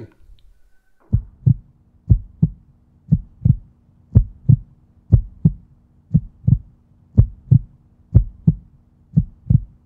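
Outro music: a heartbeat-like double thump once a second over a steady low tone, starting about a second in.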